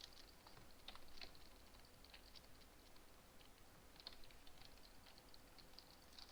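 Faint, irregular run of small sharp clicks, with a few stronger ones about a second in and again about four seconds in.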